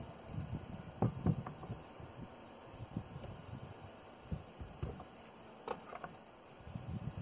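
Scattered soft knocks and thuds from handling wooden framing lumber, with a few sharper clicks about a second in and near six seconds.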